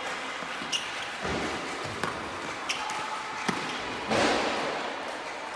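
Balls bouncing and striking a hard surface during a coordination drill: about five separate sharp hits at irregular spacing, then a louder, longer impact a little past four seconds in.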